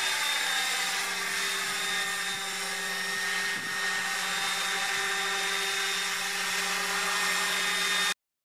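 Electric 1:10 scale RC helicopter in flight: a steady high-pitched whine from its motor and rotor drive over the rush of the rotor blades, the pitch easing down slightly at first. The sound cuts off abruptly near the end.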